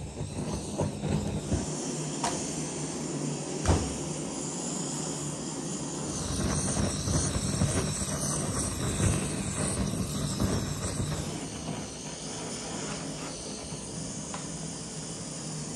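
Handheld gas blowtorch flame hissing steadily as it singes the skin of a whole raw chicken, with a sharp knock about four seconds in.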